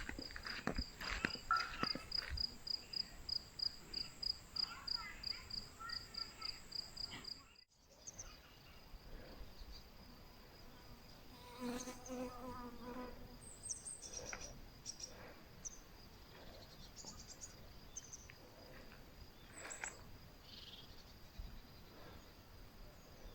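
A cricket chirping in a fast, even rhythm of high pulses, nearly four a second, with footsteps over it. About eight seconds in it cuts off abruptly. After that only faint scattered high chirps are heard.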